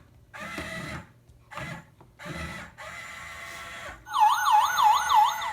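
Electronic sound effects from a toy robot that has just been repaired by re-soldering its connections: a few short buzzy beeping bursts, then near the end a loud siren-like warble sweeping up and down about four times a second.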